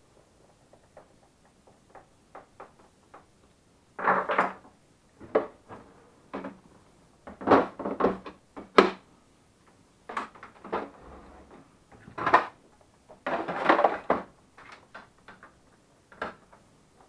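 Melitta Barista TS Smart coffee machine's casing and parts being handled and fitted by hand: irregular knocks, clicks and short clattering bursts.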